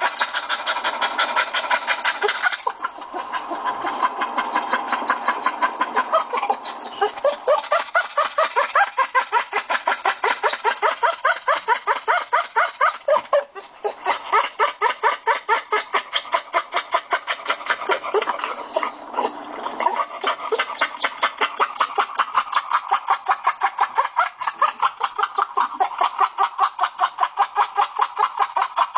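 A dog vocalising in a rapid, rhythmic string of short yelping whines, several a second, its pitch wavering up and down over a few seconds at a time.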